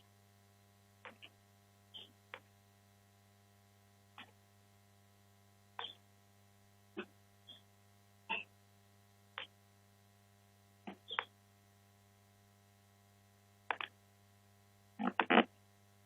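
Wood fire crackling: scattered sharp pops at irregular intervals, a louder cluster near the end, over a steady low hum.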